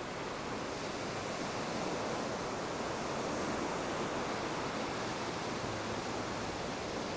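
Surf washing onto a sandy beach, a steady even rush of waves.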